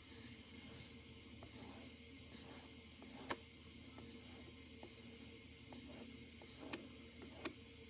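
Faint, repeated swishes of a spokeshave iron being stroked along a leather strop to finish its edge, with a few light clicks, the loudest a little over three seconds in.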